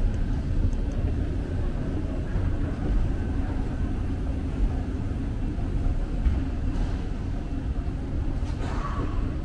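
Subway train running underground, a steady low-pitched noise with no distinct events.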